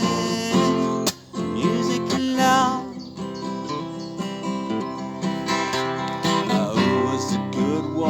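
Acoustic guitar strummed in a steady song accompaniment, an instrumental gap between sung lines, with a brief dip about a second in.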